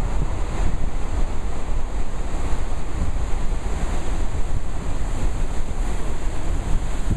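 Churning white water rushing steadily, with wind buffeting the microphone.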